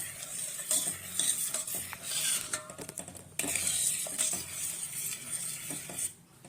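A spoon stirring and scraping cooked sago and moong dal together in a pot, with small clinks against the pot, pausing briefly partway through.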